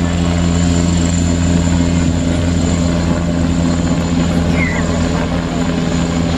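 Eurocopter Tiger HAD attack helicopter in flight overhead: a steady drone of its main rotor and twin turboshaft engines, with a thin, steady high whine above it.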